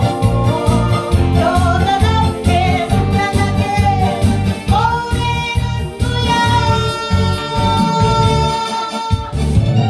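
A woman singing a Korean trot song through a microphone and PA over backing music with a steady beat. She holds one long note from about five seconds in until near the end.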